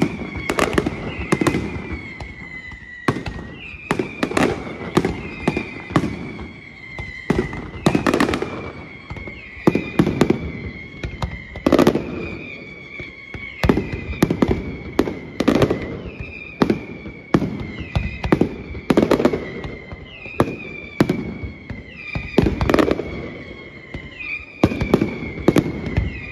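Fireworks display: a rapid run of shell bursts and bangs, several a second at times, with crackling between them. A high whistle comes back every second or two, each time sliding slightly down in pitch.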